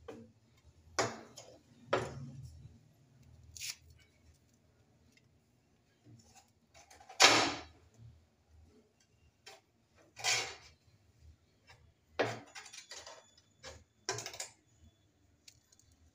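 A small hand spatula scraping and tapping on tile as it spreads non-sag epoxy over cracked stair tiles: about eight short strokes a second or two apart, the loudest about seven seconds in.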